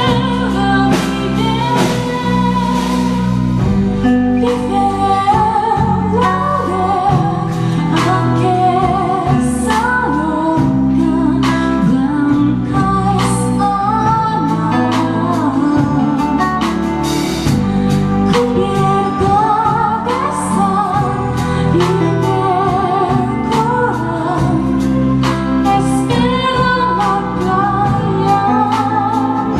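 A woman singing with vibrato over band accompaniment, with a sustained bass line and regular percussion strokes.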